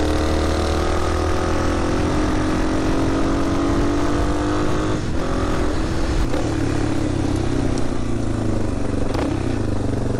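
Yamaha Serow 225 motorcycle's single-cylinder engine running steadily while riding, mixed with wind and road noise. The engine note shifts about five seconds in, then carries on lower.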